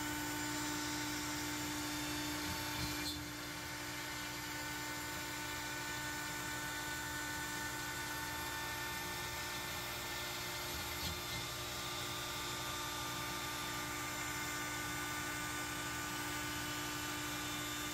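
Longmill MK2 CNC router running a job in a plywood sign blank: the router motor's steady high whine, several held pitches at once, over the rush of the bit cutting wood.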